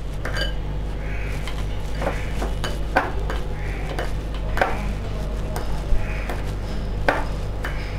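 Hand kneading flour dough in a glass bowl: soft squishing and rubbing, with scattered sharp clicks and taps against the glass. A steady low hum runs underneath.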